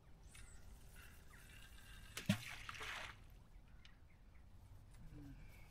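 Fishing rod being cast: a single sharp snap as the rod whips forward, followed by under a second of hiss, as of line running off the reel.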